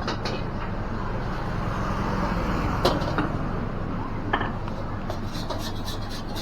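A metal spatula knocking against a wok while fried rice is stir-fried, over a steady low rumble. There is a single sharp clank about three seconds in, another a second and a half later, and a quick run of clicks and scrapes near the end.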